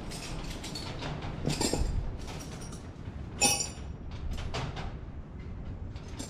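Metal hand tools and parts being handled while working on a tractor: scattered light knocks and rustling, with one sharp metallic clink about three and a half seconds in that rings briefly.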